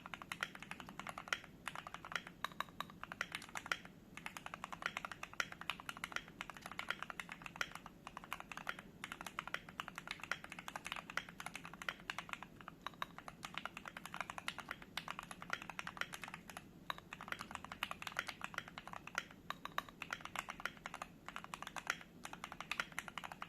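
Typing on a Keychron Q3 mechanical keyboard with lubed and filmed Gateron Oil King linear switches: a fast run of keystrokes with short pauses between bursts.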